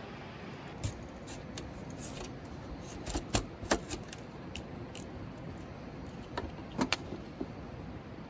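Irregular light clicks and clinks, a dozen or so scattered through, the loudest a few in the middle and one near the end, over a steady low background hiss.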